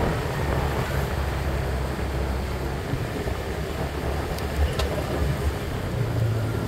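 Motor scooter engine running steadily under way, over an even haze of road and air noise; its low hum steps up in pitch near the end.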